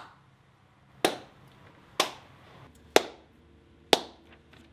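Slow hand clapping, one sharp clap about every second, five claps in a row.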